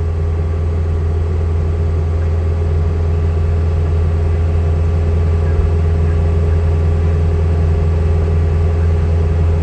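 A vehicle engine running steadily at an even speed, a constant low drone with no change in pitch.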